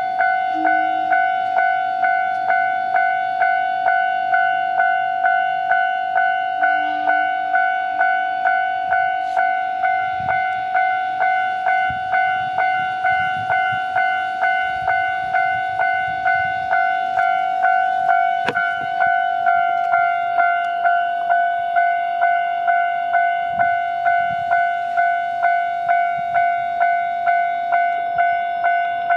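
Railroad level-crossing warning bell ringing without pause, one tone struck about twice a second in an even rhythm, each strike dying away before the next.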